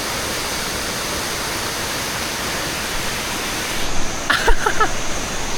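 Waterfall pouring into a pool: a steady, even rush of falling water. About four seconds in, a brief voice sounds over it.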